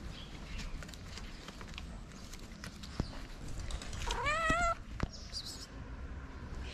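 A tabby-and-white street cat gives a single meow about four seconds in. The meow rises in pitch, then wavers and stops after about two-thirds of a second.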